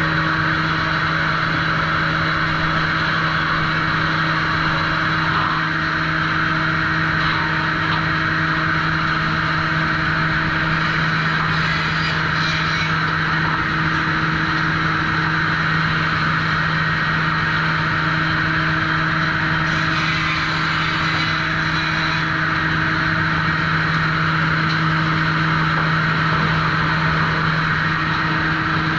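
Sawmill machinery running steadily at the trim saw: an unbroken mechanical drone that stays constant throughout.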